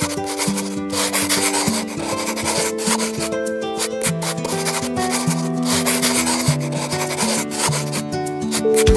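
Felt-tip marker rubbing and scratching across paper in short strokes, over background music of held, changing notes.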